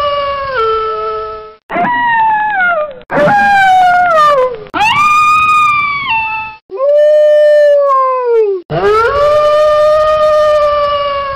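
Wolf howling: a run of about six long howls, some sliding down in pitch and others held level before stepping down at the end. Each howl stops abruptly and the next begins at once.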